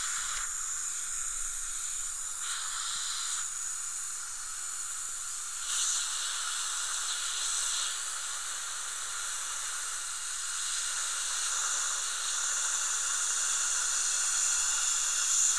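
Dental handpiece with a round bur running with water spray, a steady high hiss, as it cuts away decayed dentin from a molar.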